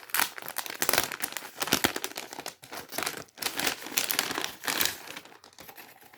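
Packaging being handled and crinkled open by hand, a dense run of irregular crackles and rustles that fades out near the end.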